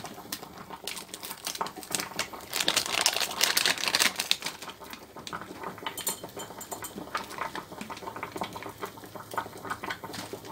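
A paper packet of whole cloves rustling and crinkling in the hand, loudest about three seconds in. Then light scattered clicks as a few cloves are shaken out into a glass jar.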